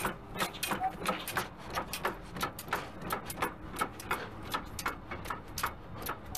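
Kennel dogs barking excitedly: a rapid, uneven string of short, sharp barks, several a second, overlapping one another.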